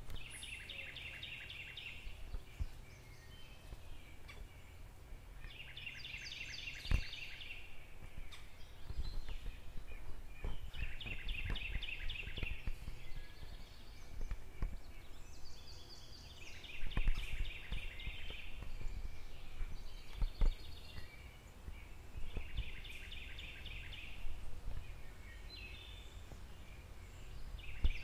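A bird singing the same short, fast-trilled phrase about every five seconds, over a low steady rumble with occasional clicks and knocks.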